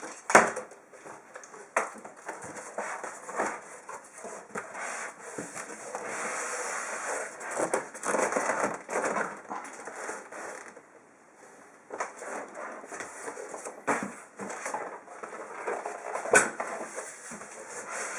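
Cardboard box and packing of a PC case being handled and opened: irregular rustling and crinkling, with scattered sharp knocks and clicks, the loudest near the start and again late on. The handling goes quieter for a moment a little past the middle.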